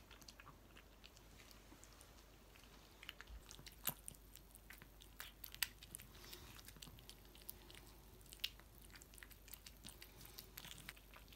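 Domestic cat eating wet food (shredded chicken and rice in broth) from a bowl: faint, irregular chewing and mouth clicks, with a few sharper clicks now and then.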